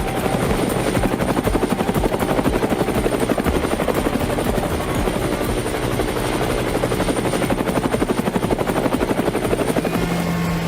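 Roadside mowing attachment on a Yanmar B110W-1 excavator running through grass: a loud, fast, steady chopping throb. Near the end a different steady hum takes over.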